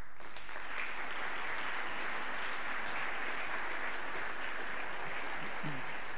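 Audience applauding steadily, a dense even clapping at the end of a keynote talk.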